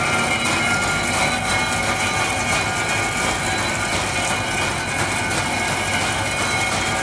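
Rubber deflashing machine running: a steady mechanical noise with a constant high whine, and the vibrating mesh separator tray shaking rubber parts and flash.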